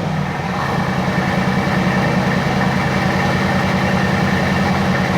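BRABUS 900's 4.5-litre twin-turbo V8 idling loudly and steadily, with a fast, even low pulsing of the exhaust.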